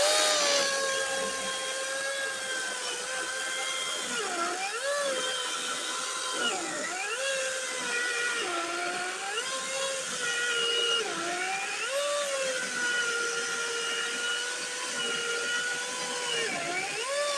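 Kobalt 24V 12-inch cordless chainsaw cutting through a 6–7 inch log at full throttle. The steady electric motor whine sags in pitch several times as the chain bites into the wood, then picks back up.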